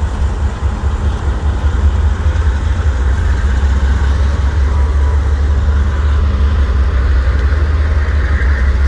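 Two CSX diesel freight locomotives passing at slow speed, their engines making a steady deep rumble.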